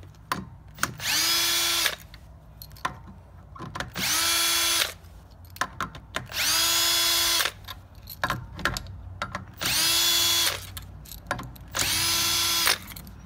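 Cordless drill with a 10 mm socket backing out the end-cover bolts of a Gast rotary vane pump: five runs of about a second each, every one spinning up and then holding a steady whine. Small clicks and knocks between the runs as the socket is moved to the next bolt.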